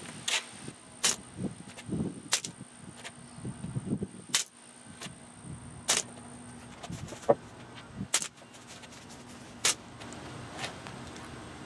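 Two loaded Glock .40 pistol magazines with base-plate extensions dropped again and again onto concrete, each landing a sharp clatter: about eight hard impacts a second or so apart, with lighter ticks between. It is a drop test of the magazine extensions, run until one breaks.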